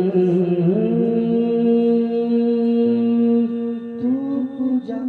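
Wordless male singing in a naat recitation: long held, slowly gliding notes, moving to a new note about three and a half seconds in.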